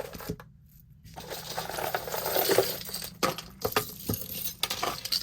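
Small metal jewelry pieces clinking and jangling against each other as a hand rummages through a pile of them: a rattling stretch in the middle, then a few separate clinks.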